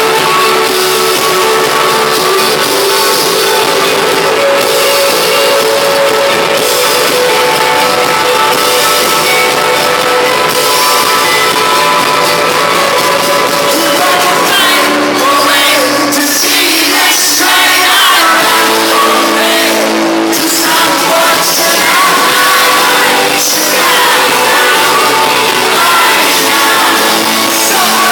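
A rock band playing live and loud, with a singer belting over guitars and drums. About halfway through, the bass and low end drop out for a few seconds, then the full band comes back in.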